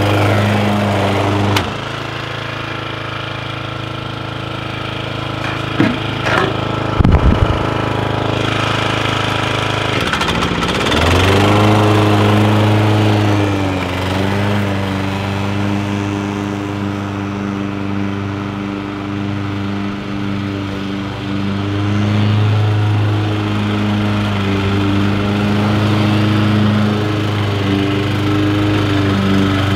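Bob-Cat 21-inch commercial walk-behind lawn mower running steadily while being pushed across grass. A few sharp knocks come about six to seven seconds in, and the engine note dips and climbs back about ten seconds in.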